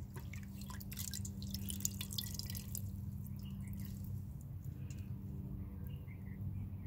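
Dye liquid splashing and dripping in a stainless steel pot as a hand stirs in it and lifts out a wet fabric bundle, with drops falling back into the pot. The splashing is densest in the first three seconds, then thins to a few scattered drips.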